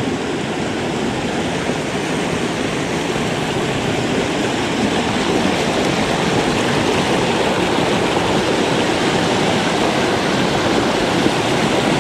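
Mountain stream rushing: a steady, loud rush of running water that grows a little louder over the stretch.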